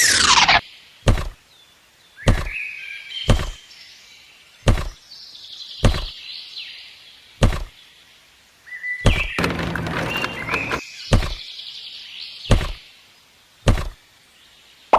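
A steady motor-like sound drops in pitch and stops right at the start. A slow, uneven series of about ten sharp knocks follows, roughly one every second or so.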